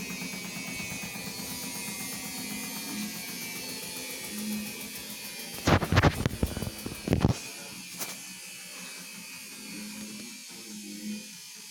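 LG WD-80155NUP washing machine running, a steady motor buzz with the drum turning; a cluster of loud knocks comes about six seconds in, after which the low hum drops away and the machine goes quieter.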